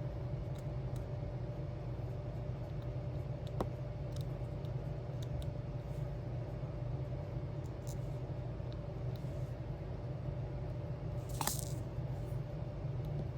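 Small plastic diamond-art resin drills clicking and rattling as they are picked up and placed, with one short clatter about eleven seconds in, over a steady low hum.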